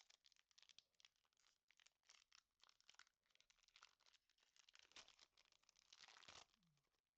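Foil wrapper of a Pokémon TCG booster pack being torn open and crinkled by hand: a run of quick crackles, with a longer tearing stretch near the end.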